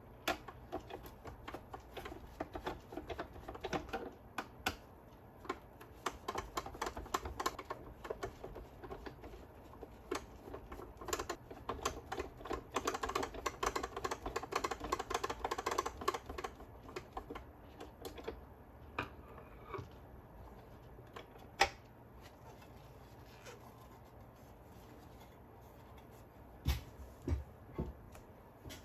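Dense, rapid clicking and ticking of small plastic parts being handled and taken apart on a gyro stage unit, thinning out after the middle into occasional single knocks, with a few louder ones near the end.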